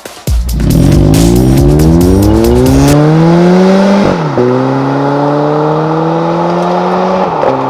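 Hyundai Veloster four-cylinder engine through a stainless steel performance cat-back exhaust, accelerating hard. Its pitch rises steadily for about three seconds, drops sharply at a gear change, holds steady, then drops again near the end.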